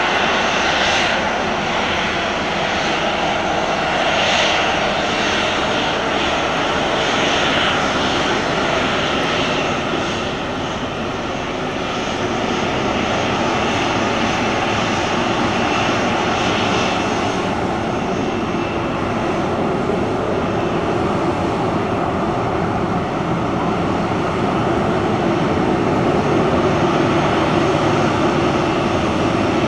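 Twin jet engines of a Boeing 737 airliner at low taxi power as it rolls slowly along the runway and turns: a steady, loud engine noise with a high whine that eases a little after the first ten seconds.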